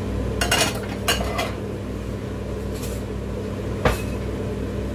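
Dishes and cutlery clinking as a plate is handled on a gas stove's metal grate. There are several light knocks in the first second and a half, another near three seconds in and a sharper one near four seconds in, over a steady low hum.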